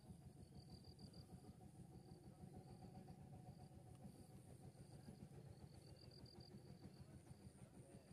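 Near silence: a faint low rumble of outdoor air, with faint high insect trills coming and going every second or two.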